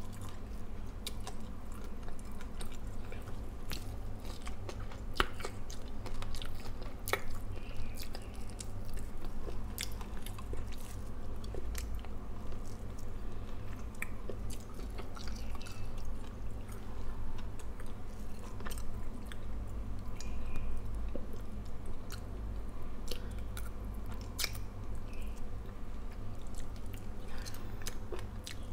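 A person chewing and biting food close to the microphone, with many small scattered clicks of mouth and fingers, while eating fried fish by hand. A steady low hum lies underneath.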